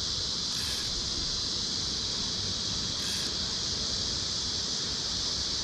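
A steady, unbroken chorus of insects calling in a constant high buzz, with short, even higher bursts from another insect about every two and a half seconds.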